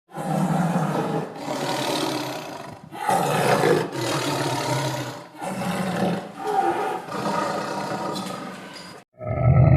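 A big cat roaring and growling in four rasping calls, each lasting one to two seconds. Near the end the sound cuts off briefly and a different, steadier-pitched animal call begins.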